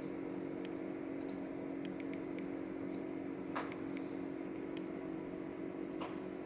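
Light, scattered clicks and ticks of small metal parts and tools as a Goal D9 dimple lock is taken apart, over a steady low hum.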